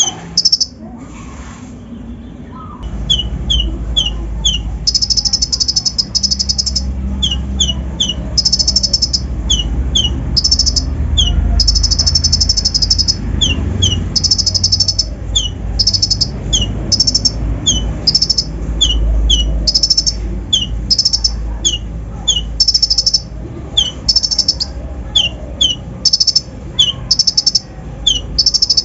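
Konin (kolibri ninja) sunbird singing: quick high trills alternate with short, sharply falling chirps over and over, in a busy, mixed song. A steady low rumble runs underneath from about three seconds in.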